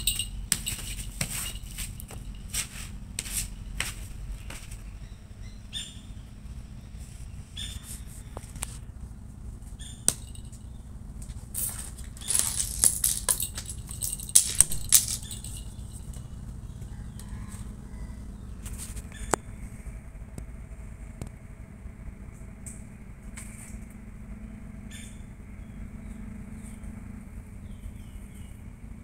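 Scattered rustling and clicking, with a burst of louder crackly rustling about twelve to fifteen seconds in, over a low steady hum.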